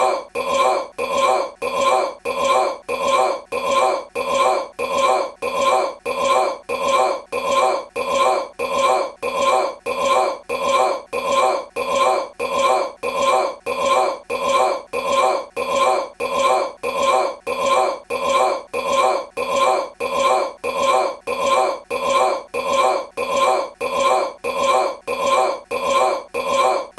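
A man's short belch repeated over and over as an identical loop, about three belches every two seconds, each one the same.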